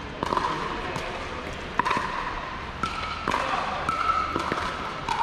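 Pickleball paddles striking a plastic pickleball: several sharp, hollow pops at irregular intervals about a second apart.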